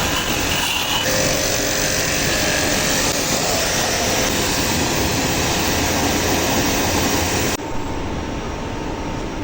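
Pressure-washer pump running with its water jet spraying, a loud steady hiss. About seven and a half seconds in the high hiss cuts off abruptly, leaving a lower, quieter running noise.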